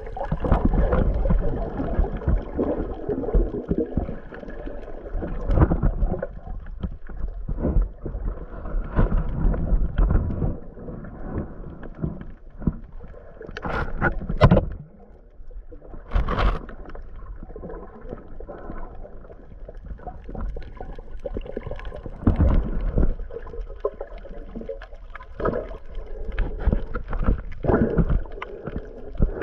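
Muffled, irregular sloshing and gurgling of water heard through a GoPro Hero 8 held underwater while snorkeling, with two brief sharper splashes a couple of seconds apart about halfway through.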